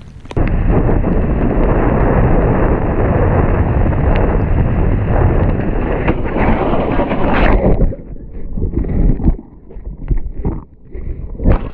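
Heavy wind buffeting on a helmet-mounted camera's microphone as a motorcycle rides at speed, which stops abruptly about eight seconds in and gives way to irregular knocks and rustling bursts.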